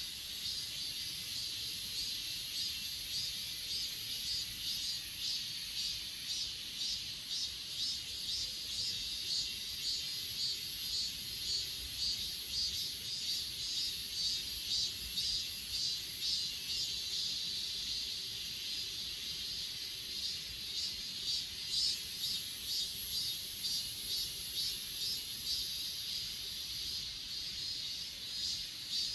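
A chorus of grass insects stridulating: a steady high-pitched trill with a pulsing chirp over it, repeating about two or three times a second.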